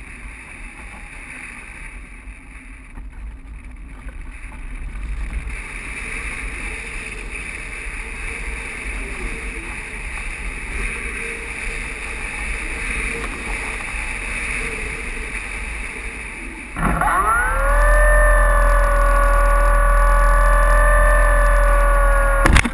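Airflow rushing over the Art Tech Diamond 2500 motor glider as it glides with the motor off, slowly growing louder. About 17 seconds in, its electric motor spins up the nose propeller: a whine that rises in pitch, then holds steady and much louder.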